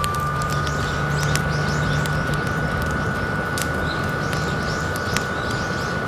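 Steady whine of the BioLite FirePit+'s built-in fan running at its maximum setting, rising slightly in pitch in the first second and then holding steady. Burning wood pops sharply a few times.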